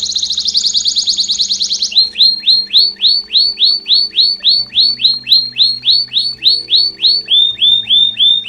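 Domestic canary (Belgian canary) singing: a fast rolling trill, then from about two seconds in a long run of clear, falling whistled notes, about four a second, which shift slightly lower and quicker near the end.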